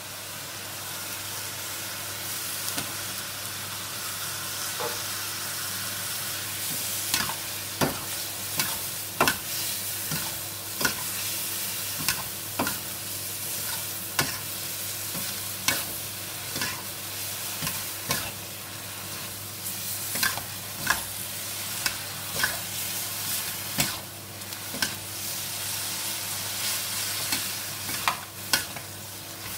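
Shredded cabbage and carrot filling sizzling in a wok as a metal wok spatula stirs and tosses it. From about seven seconds in, the spatula knocks and scrapes against the pan about once a second.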